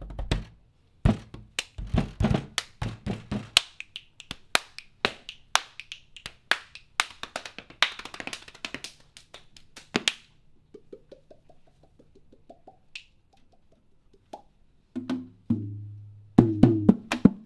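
Rhythmic body percussion: sharp hand strikes in a syncopated groove, thinning about ten seconds in to a run of soft, quick taps, then heavier low thumps and dense strokes pick up near the end.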